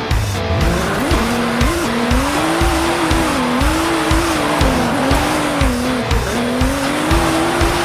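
Background music with a steady beat and a wavering, engine-like tone that slides up and down.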